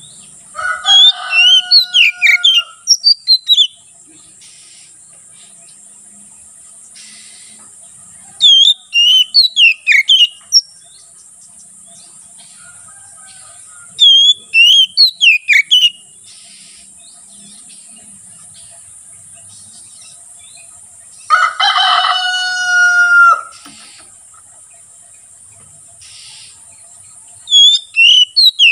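Oriental magpie-robin (kacer) singing loud, open song in short bursts of rapid, varied whistled notes, a new burst every five or six seconds. About three-quarters of the way through comes one longer, harsher drawn-out call. A steady high whine runs underneath.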